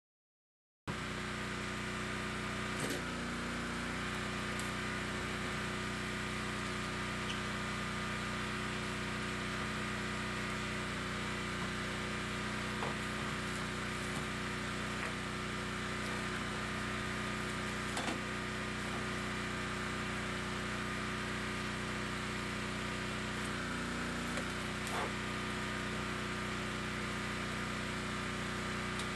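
Steady electric hum of a shrink tunnel's heater blower and conveyor motor running, with a few faint clicks as shrink film is handled.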